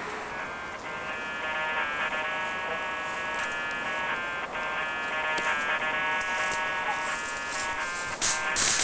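Buzzy electronic synthesizer music playing held chords that change every second or so, growing louder near the end.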